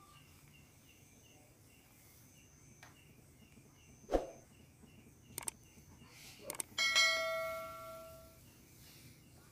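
Subscribe-button sound effect: two quick clicks, then a bright bell ding about seven seconds in that rings out for about a second and a half. A dull knock comes about four seconds in, and faint chirps repeat evenly in the background throughout.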